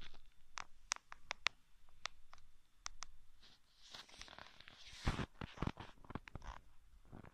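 Irregular clicks, light knocks and scratchy rustling, with a longer rustle about four seconds in and a cluster of heavier knocks after it: handling noise from the camera being moved.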